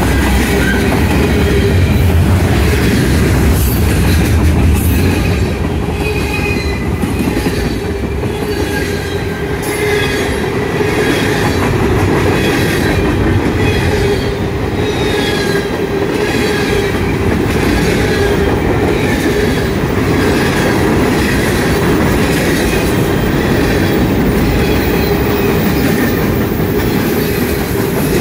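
CSX mixed freight train of boxcars, covered hoppers and tank cars rolling past close by: a steady rumble of wagons with repeated clacks of wheels over rail joints and brief high wheel squeals now and then.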